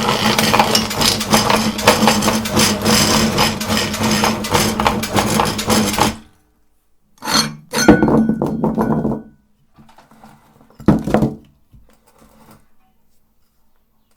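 Electric meat grinder running with a steady motor hum and dense crackling as hard candy is crushed, cutting off suddenly about six seconds in. Two shorter bursts of the same noise follow, then a sharp knock and a few faint clinks.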